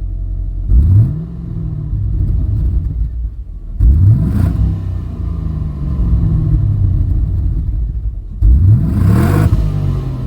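Stock 2007 Holden Calais V's 6.0-litre L98 V8 on its factory exhaust, idling and revved three times, each rev rising quickly and falling back to idle. Heard from outside the car, it is pretty underwhelming for a 6-litre V8.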